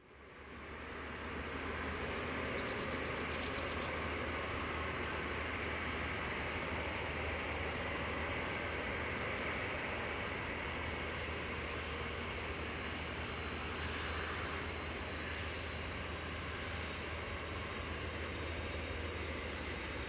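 Boeing 747-8F freighter's four GEnx-2B turbofans running at taxi idle as the jet rolls slowly along the taxiway, a steady engine drone that fades in over the first two seconds.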